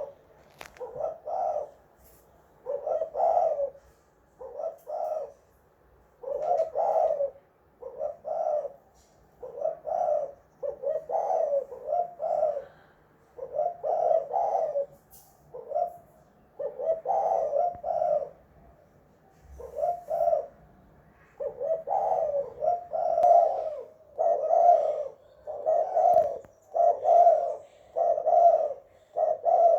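Spotted dove (tekukur) cooing over and over. Short phrases of low coos are repeated every second or two.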